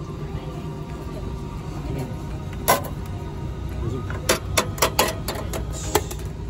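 Steady low hum, broken by one loud sharp click about a third of the way in and then a quick run of about six clicks and knocks, like hard objects being set down or handled.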